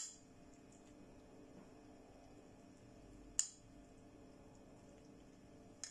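Three brief clinks of a metal spoon against the cooking pot and a ceramic plate as chicken and potatoes are dished out: one at the start, the loudest about three and a half seconds in, and one at the end.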